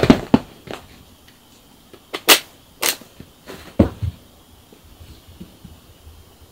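A cat leaping down and scrambling about, with a flurry of paw thumps and scrabbling at the start, two sharp clicks about two and three seconds in, and a dull thud about four seconds in.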